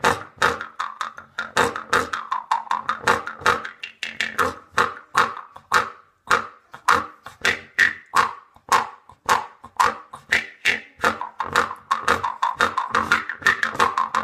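Jaw harp (doromb) played with quick rhythmic plucks over its steady metallic drone, the player's mouth shifting the overtones to make a twangy, wah-like melody.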